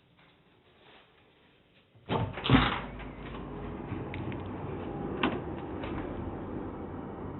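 A door being opened: a few sharp knocks and a loud clunk about two seconds in, after which a steady background noise from outside comes in, with another click about five seconds in.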